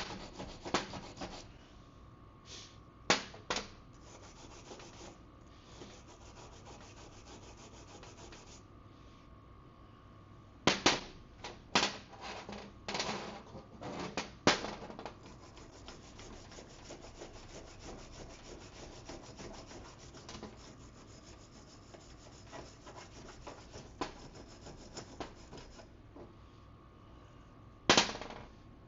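Wire brush scrubbing a vintage dirt bike's metal footrests clean: steady scratching with a handful of short, louder scraping strokes scattered through.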